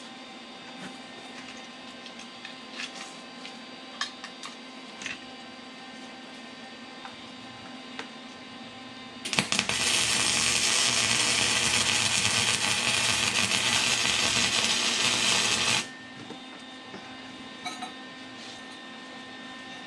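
Electric arc welding a railroad spike to a steel plate: a steady, loud crackling of the arc that starts about nine seconds in and stops sharply some six seconds later. Before and after it, a few light metal clinks as the spikes are handled.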